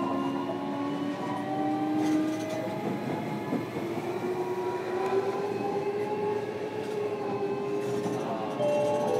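A JR Kyushu 305 series electric train heard from inside a motor car while running. The traction motors and inverter whine in several tones that slowly glide in pitch as the speed changes, over a steady rumble of wheels on track.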